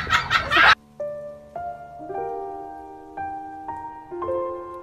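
Soft background piano music: single notes struck one at a time and left ringing, building into a slow, gentle melody. It begins about a second in, right after a loud, busy chattering sound cuts off abruptly.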